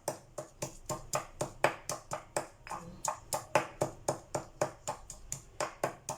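A pestle pounding garlic, red chilli and salt in a mortar to make sambal, in quick even strikes of about four a second.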